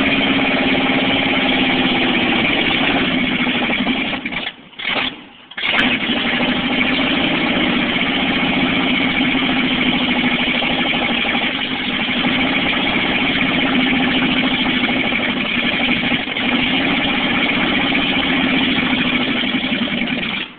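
1969 Dodge Sweptline pickup's engine running steadily. About four to six seconds in it drops out twice in quick succession, then picks up again and keeps running.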